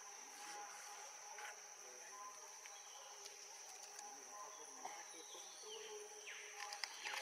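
Steady high-pitched insect drone, faint, with a few short falling chirps near the end.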